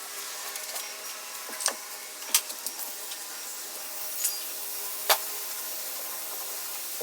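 A steady machine hum with a handful of short, sharp clicks or clinks scattered through it, the loudest about two and a half seconds in and again near five seconds.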